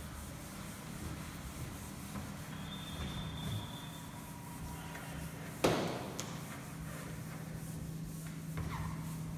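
Chalkboard being wiped clean with a duster, a dry rubbing across the board, with one sharp knock a little over halfway through.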